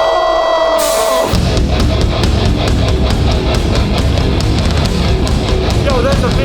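Hardcore punk band playing live at full volume. A held steady note with sliding notes over it gives way, about a second in, to drums and distorted guitars crashing in together.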